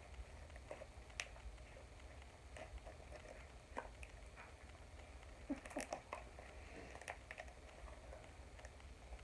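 Hands kneading and pulling homemade glue slime: faint sticky squishes and irregular little clicks, with a brief flurry of sharper crackles about halfway through, over a low steady hum.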